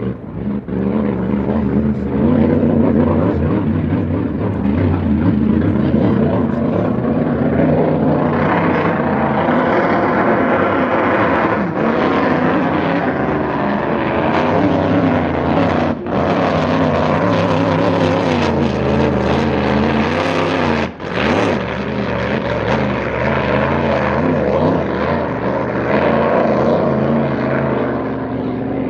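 Grand Prix racing hydroplane's engine running hard at speed, a loud continuous drone whose pitch rises and falls as the boat passes, with two brief dips past the middle.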